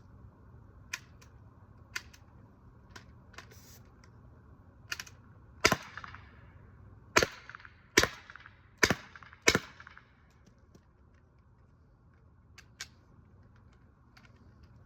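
TR 68 less-lethal air pistol, a CO2-powered .68 calibre gun, firing five sharp shots in quick succession about a second apart, each with a brief ringing tail. A few lighter clicks come before the shots.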